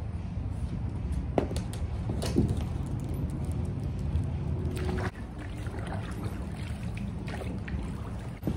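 Water sloshing and small splashes and knocks from a plastic sit-in kayak being paddled in a swimming pool, over a steady low rumble.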